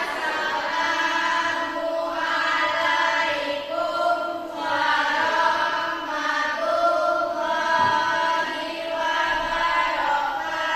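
Slow sung chant with long held notes, in phrases that break every second or two.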